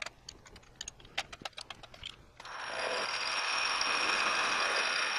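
A run of scattered metallic clicks and rattles as the lathe is set up. About two and a half seconds in, the Precision Matthews 1127 lathe's spindle starts up and runs steadily with a high whine.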